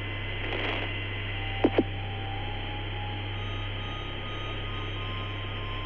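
Open air-to-ground radio channel from the Apollo 9 spacewalk: steady hiss over a low hum, with two short clicks about a second and a half in.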